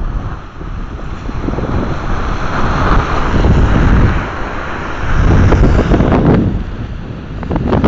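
Strong wind buffeting the microphone in uneven gusts, over a steady rush of water pouring down the dam's spillway.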